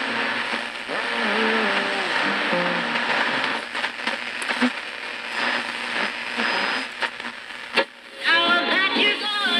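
Hallicrafters S-38D tube receiver playing a broadcast station through its speaker: music under a steady layer of static hiss. A sharp click and a brief drop come just before the end, and the music then comes through more clearly.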